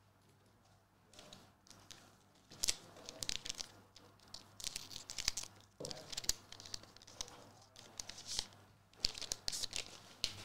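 A Magic: The Gathering Collector Booster pack being torn open, its foil wrapper crinkling in an irregular run of crackles and rustles.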